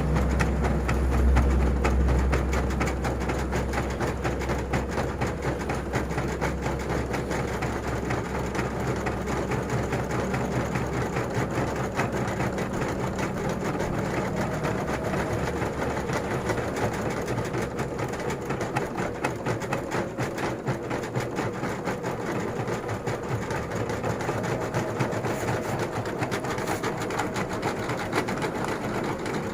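EM200 computerized embroidery machine stitching steadily, a fast, even clatter of the needle. A low hum under it at the start dies away over the first several seconds.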